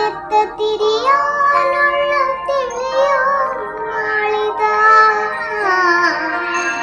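A young girl singing, holding long notes that glide up and down between pitches.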